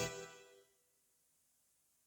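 Yamaha PSR-373 keyboard: the last chord of a phrase dies away within about half a second, then near silence.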